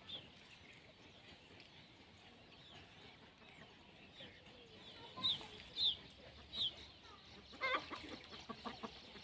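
Chickens clucking and calling: three sharp, high falling calls about five to seven seconds in, then a louder call and a run of short clucks near the end.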